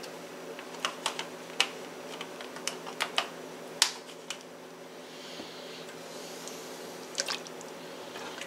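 Scattered light clicks and taps of kitchen items being handled on a counter, a small plastic carton cap and a wooden spoon in a pot among them, over a steady low hum.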